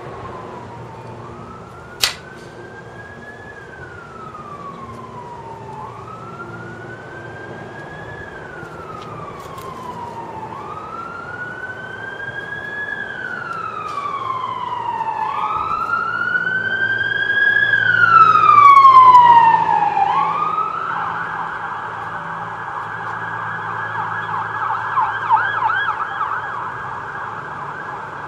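Emergency vehicle siren going past, wailing up and down about every two and a half seconds and growing louder, then switching to a fast warbling yelp about twenty seconds in as it fades. A single sharp click comes about two seconds in.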